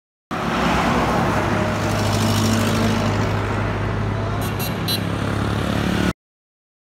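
Road traffic passing: a steady engine drone over a wash of tyre and road noise, cutting in suddenly and cutting off suddenly.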